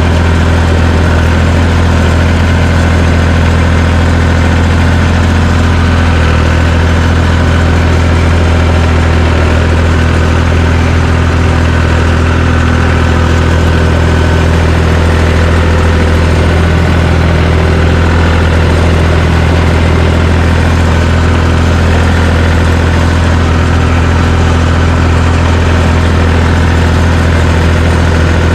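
Engine of a John Deere 350 crawler dozer running steadily at a constant speed, loud and close.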